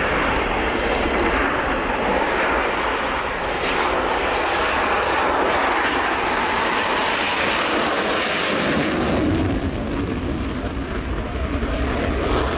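Panavia Tornado GR4's twin RB199 turbofans running at high power with afterburner on the takeoff, a loud, dense jet roar. About nine seconds in, the roar turns into a deep low rumble.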